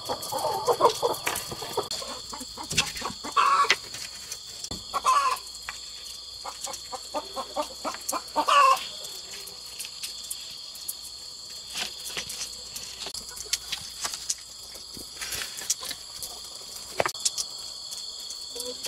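Chickens clucking in several separate calls over a steady high-pitched background drone, with scattered short clicks and knocks.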